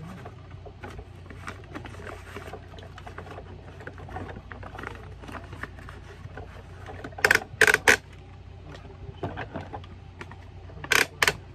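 Plastic toy garbage truck being handled: small clicks and rattles of its plastic loader arm and parts, with three sharp clacks about seven seconds in and two more near the end, over a steady low hum.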